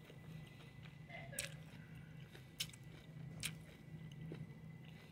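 Quiet chewing of dry, pulpy orange segments, with a few soft sharp mouth clicks.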